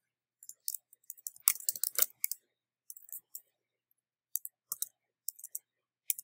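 Keystrokes on a computer keyboard. A quick run of key clicks in the first two seconds or so, then a few spaced clicks in small groups toward the end.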